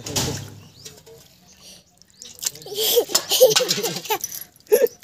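Water splashing during a small child's bath, with the child's wordless voice sounds in the second half.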